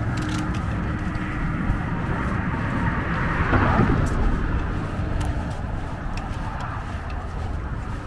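Road traffic going by over a steady low rumble, with one vehicle passing loudest about three and a half seconds in.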